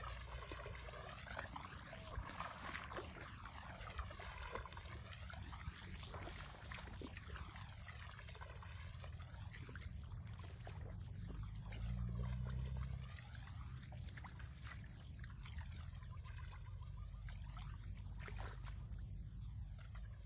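Water splashing and sloshing as people wade barefoot through shallow muddy water, over a steady low rumble that swells louder about twelve seconds in. The sound has a swirling, phased whoosh to it.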